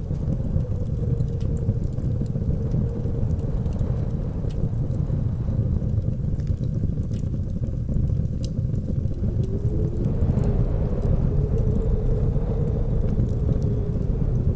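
Blizzard wind blowing with a heavy low rumble and a faint howling tone that wavers and rises a little about ten seconds in, with scattered sharp crackles of a wood fire.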